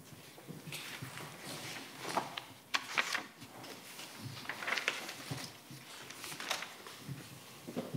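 Paper rustling and small handling knocks at a meeting table, short irregular rustles about a second or two apart in a quiet room.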